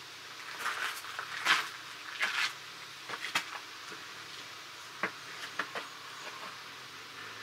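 Handling noises close to the microphone: a string of light clicks and scrapes, the loudest about a second and a half in, thinning out after about five seconds.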